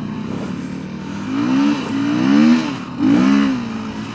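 Motorcycle engine revving up and down three times as the bike pulls through soft ground, under a rushing noise from the ride.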